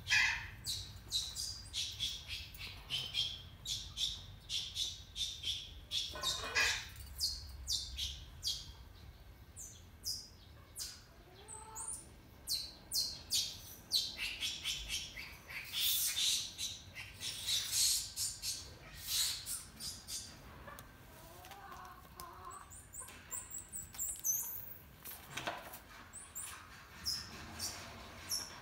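Small birds chirping and squawking, many short, sharp high calls following one another every second or so, over a low steady background hum.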